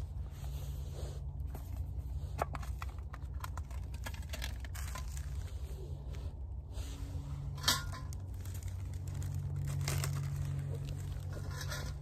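Rustling and crinkling from handling camp gear, with scattered light taps and clicks and one sharper click near the middle, over a steady low rumble.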